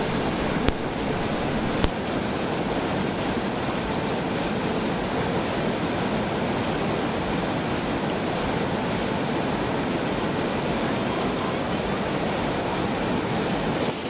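Loud, steady rush of a tall waterfall, water falling a long way into the gorge below. Two brief clicks in the first two seconds.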